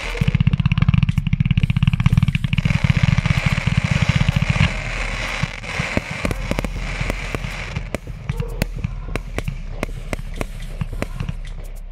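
Fireworks battery firing at night: a fast, loud volley of launch thuds for the first four and a half seconds, then a long run of sharp crackling pops as the stars burst.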